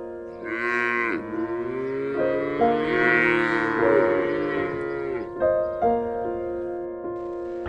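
A cow mooing twice, a short moo followed by a long drawn-out one, over background music of sustained instrumental notes.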